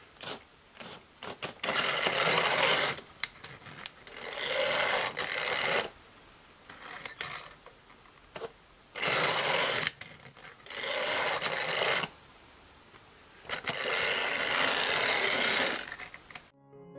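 Small electric motor of a vintage Tri-ang Princess Elizabeth toy locomotive running on its track in five short spells of one to two seconds each, a coarse rasping buzz. Its wheels and rails are tarnished and only partly cleaned, so it moves in fits and starts. Piano music comes in just before the end.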